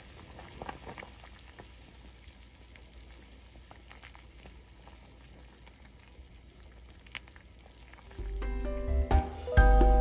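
Pot of beef and radish soup bubbling at the boil while a ladle stirs it, with a few light clinks against the pot. About eight seconds in, background music with plucked notes starts and becomes the loudest sound.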